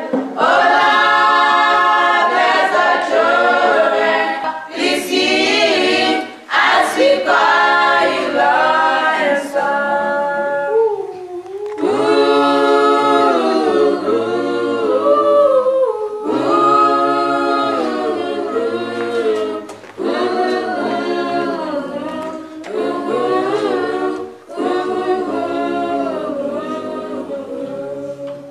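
Children's choir singing a cappella, in phrases with brief pauses between them.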